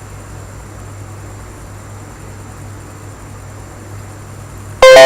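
Steady low hum with a faint hiss, then near the end a loud plucked-string chord of music starts suddenly and rings out.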